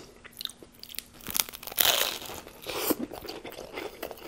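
Close-up biting and chewing of a flatbread Subway sandwich with chips tucked inside: a run of crisp crunching and crackling, loudest about two seconds in.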